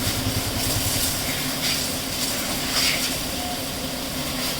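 Steady mechanical noise with a few short hissing bursts, one about a second and a half in and another near three seconds.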